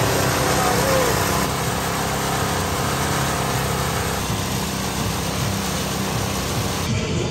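A steady mechanical drone like a small engine or motor running, with a low hum under a dense even hiss.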